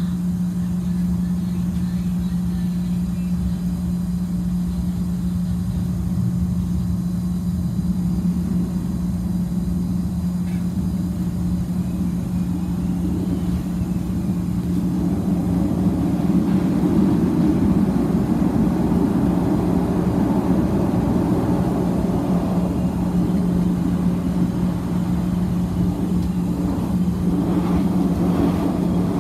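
Interior of a CTA 2600-series rapid-transit railcar: a steady low hum under the rumble of the train, which grows louder from about halfway through as the train gets under way and runs along the track.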